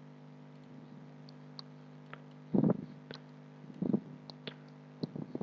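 Computer mouse clicking a few times, with some slightly heavier knocks, over a steady low electrical hum.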